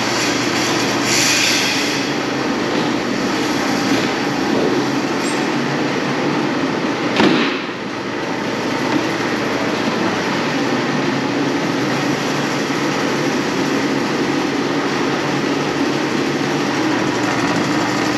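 Electric drain-cleaning machine running steadily as its cable turns in a clogged floor drain, with a brief louder jolt about seven seconds in.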